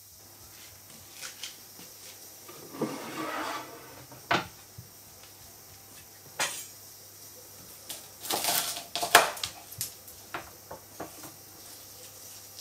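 A wooden cutting board being handled and set down on a kitchen countertop, and kitchen utensils such as a knife placed on it. The sound is a scattered series of knocks, scrapes and clatters, loudest in a cluster a little past the middle.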